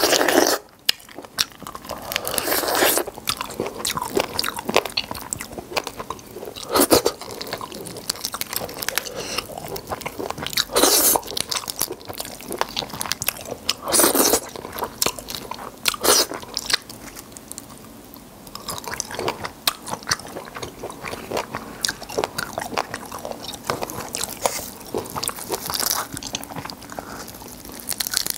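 Close-miked eating of black tiger shrimp: steady chewing and crunching, with a louder bite every few seconds.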